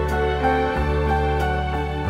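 Slow, gentle background music, sustained notes over a bass that changes about every second.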